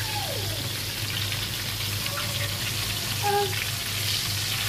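Chicken pieces frying in shallow oil in a pan, a steady sizzle with constant small crackles.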